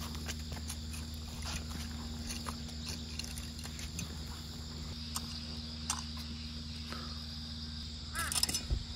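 Insects chirring steadily in the field, over a low steady hum, with scattered faint ticks. A crow caws near the end.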